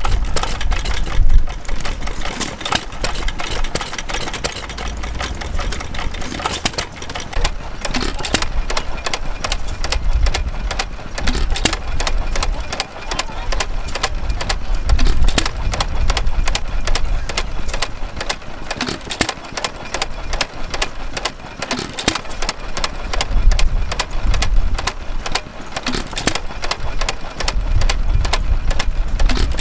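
Vintage single-cylinder stationary engines running, first a Gray Motor Co. engine and then a 1916 Amanco. Each gives a rapid, even train of sharp ticks and beats over a low thump that swells and fades.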